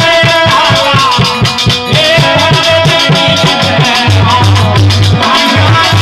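Live Rajasthani bhajan music. A drum beats a fast rhythm under a held, wavering melody, with jingling hand percussion throughout.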